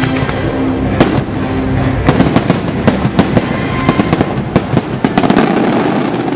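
Aerial fireworks shells bursting overhead. There is one bang about a second in, then a rapid run of bangs and crackles from about two to five and a half seconds in.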